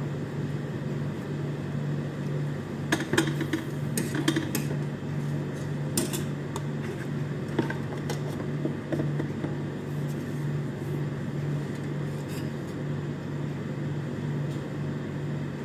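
Metal spoon stirring cream sauce in a stainless steel saucepan, knocking against the pan's side with a few sharp clinks over a steady low hum.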